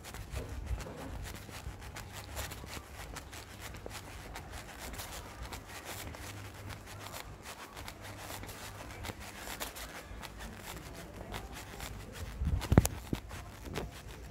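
Footsteps on a tiled floor with rustling and handling noise from a handheld phone carried while walking, over a low rumble. One sharp knock near the end.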